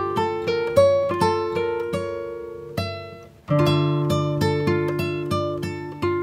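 Background music: a melody of plucked guitar notes, each one fading, with a brief break about three and a half seconds in.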